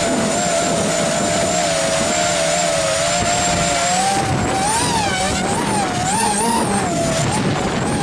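Racing quadcopter's brushless motors and propellers whining, heard from its onboard camera with wind rushing over the microphone. The pitch holds fairly steady at first, then wavers up and down from about halfway through as the throttle changes.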